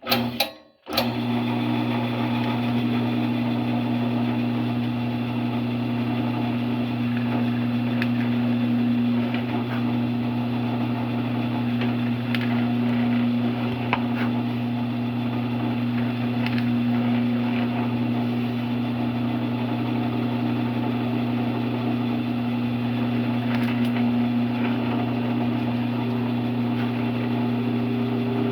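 A drill press is switched on about a second in, and its motor then runs with a steady hum while it drills holes in a wooden piece.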